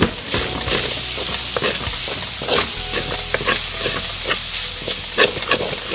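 Instant noodles and beef strips sizzling in a metal wok while a wooden spatula stirs and tosses them, with repeated scrapes and knocks against the pan, the loudest about two and a half seconds in.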